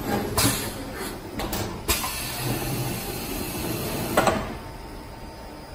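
Plastic rotary friction (spin) welding machine working through a weld cycle: sharp mechanical clicks and clunks over a steady running noise. The noise drops away after a last clunk about four seconds in.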